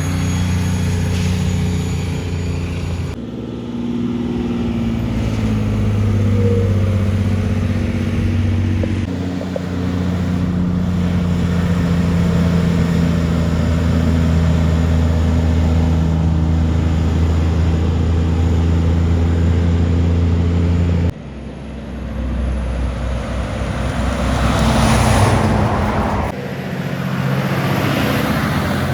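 Heavy trucks' diesel engines running steadily as they go by one after another, with the engine note changing abruptly several times. Near the end, the tyre noise of a passing vehicle swells and fades.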